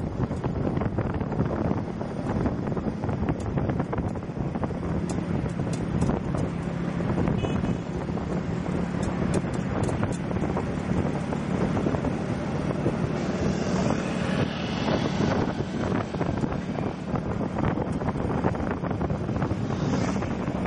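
Wind buffeting the microphone on a moving motorcycle taxi, mixed with the rumble of the ride and the surrounding city traffic.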